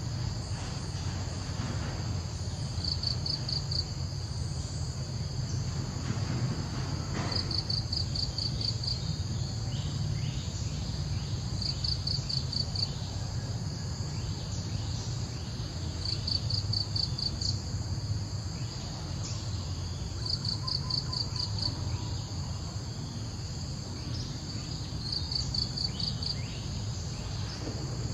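Insects calling: a steady high-pitched drone with a short, rapid pulsed trill that repeats about every four to five seconds, over a continuous low rumble.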